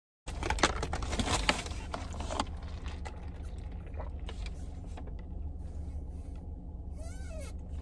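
A paper fast-food bag rustles and crackles for the first couple of seconds over the steady low hum of a car cabin. A soda is then sipped through a straw, with a short slurp near the end.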